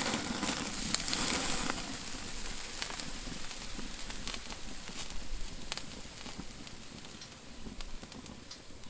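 T-bone steak sizzling and fat crackling over hot charcoal as it is turned with tongs, loudest at first and fading as the steak is lifted off the grate.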